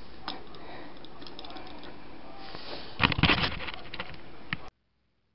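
A small plastic toy scooter being handled and set down on a table: a few faint clicks, then a cluster of light plastic clacks about three seconds in and one more click, over steady room hiss. The sound cuts off abruptly shortly before the end.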